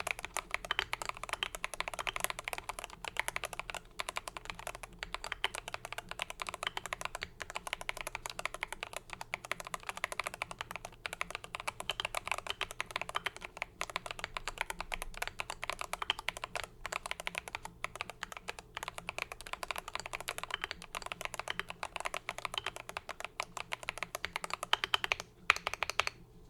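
Fast, continuous typing on a GMMK PRO mechanical keyboard built with hand-lubed LOGA Cha Thai switches, TX stabilizers, a brass plate and Akko keycaps: a dense stream of thocky key strokes. A few louder strokes come near the end, and then the typing stops.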